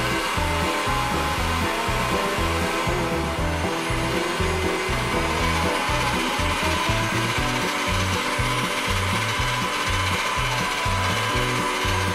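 A Marcato Atlas pasta machine driven by its electric motor attachment, running steadily as a sheet of dough feeds through the rollers, over background music with a repeating bass line.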